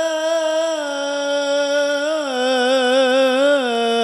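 A solo male voice singing sholawat through a microphone and sound system, unaccompanied: one long held note, then from about two seconds in a wavering, ornamented run on the same vowel before settling a little lower near the end.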